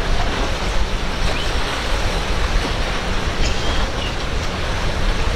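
Steady rush of waves and spray mixed with the low drone of a center-console boat's engines running at speed through chop, with wind buffeting the microphone.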